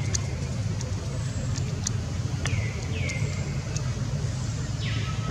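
A steady low rumble like road traffic, with a few short high calls that slide down in pitch, two around the middle and a harsher one near the end.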